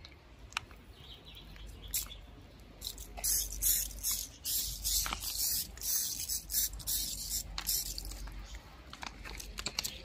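Hand-held spray bottle spraying degreasing solution onto an air-conditioner casing: a few sharp clicks, then from about three seconds in, hissing spray in uneven bursts for several seconds.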